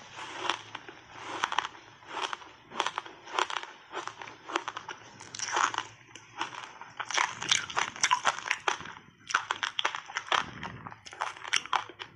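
Teeth biting and crunching a block of frozen passionfruit ice thickly coated in matcha powder: quick clusters of sharp cracks and crackles as the ice breaks, with short pauses between bites.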